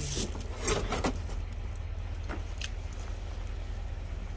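Cardboard boxes and plastic packaging rustling and knocking as they are shifted by hand, with a cluster of sharp crinkles and knocks about a second in and a few lighter ones later. A steady low rumble runs underneath.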